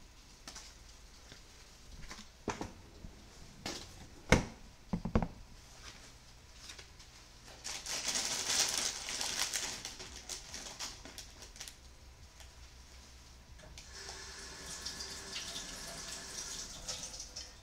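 A few sharp knocks and clatters of kitchen items being handled, the loudest about four seconds in. Then a kitchen tap runs for about four seconds, and water runs again more softly near the end.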